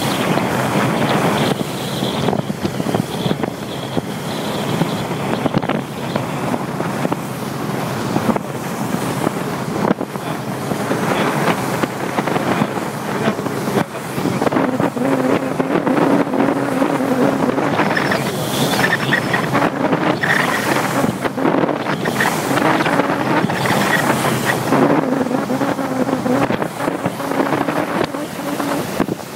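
Speedboat engine running under way, with wind buffeting the microphone.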